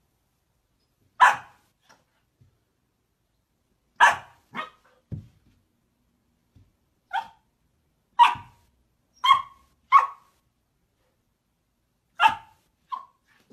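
A dog barking in single sharp barks, about ten of them, spaced unevenly with short pauses between.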